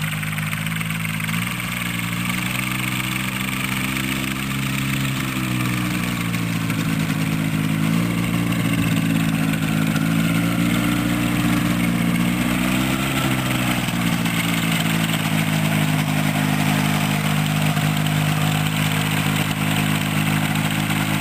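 Motorized hang glider trike's engine and pusher propeller running steadily at low power while the trike rolls on the ground, its pitch rising briefly a few times as the throttle is opened a little.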